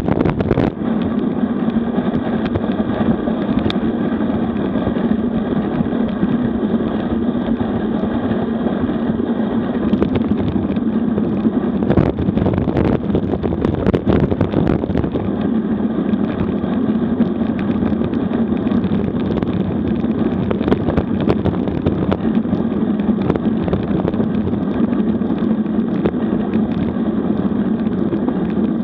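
Wind rushing over a bike-mounted action camera's microphone at about 40 km/h, together with the rumble of road-bike tyres on cracked asphalt: a steady, dense drone with a few sharp knocks from bumps in the road, two of them about halfway through.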